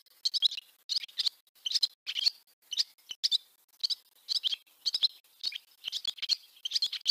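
Barn swallows twittering: quick clusters of high chirps, about two clusters a second.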